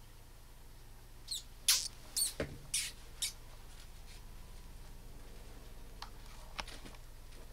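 Newborn pink mouse squeaking: about six short, high-pitched squeaks in quick succession, some rising and falling in pitch, starting a little over a second in. A few faint clicks follow later.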